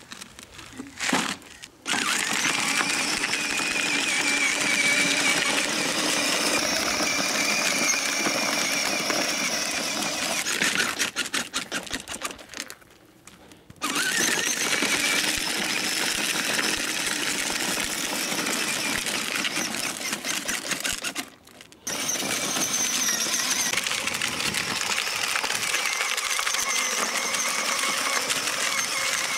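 Battery-powered children's ride-on motorcycle driving: its small electric motor and gearbox give a steady whir, with the plastic wheels rolling on a gravel path. The whir cuts out twice and starts again.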